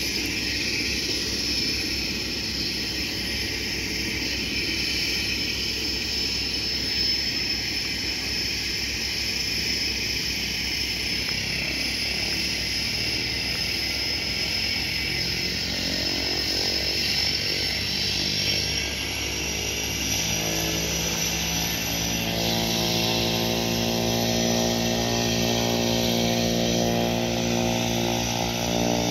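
Single-engine turboprop plane of the Cessna Caravan type running on the ground, with a steady high turbine whine. From about halfway through, a buzzing propeller drone builds up and grows louder toward the end as the engine takes more power.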